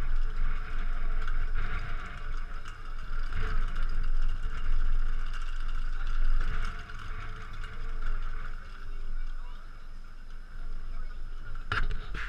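Open-air wind rumbling and buffeting on the camera's microphone, with faint voices in the background and a couple of sharp knocks near the end.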